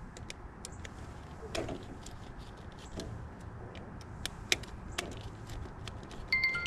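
Faint scattered clicks and ticks over a low steady hum. Near the end a mobile phone ringtone starts.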